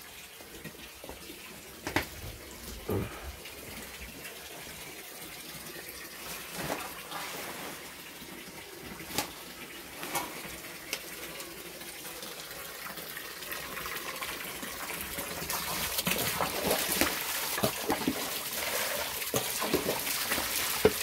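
Hot water splashing and streaming as boiled radish greens are lifted out of an iron cauldron, with a few short knocks of handling. The water sound grows louder about two-thirds of the way in.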